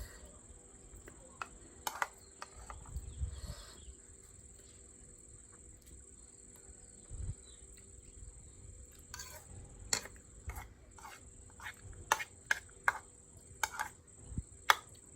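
Close-up eating sounds: chewing and mouth noises with a scatter of short sharp clicks, more frequent in the second half. A faint steady high tone runs underneath.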